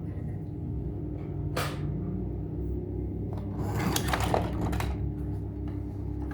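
A few light clicks and knocks of hard objects being handled: a single knock about a second and a half in, then a short cluster of clicks and rattles around four seconds, over a low steady hum.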